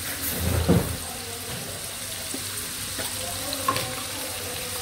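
Diced tomatoes, onions and garlic sizzling in hot oil in a frying pan, a steady frying hiss. A short louder knock comes under a second in and a small click later on.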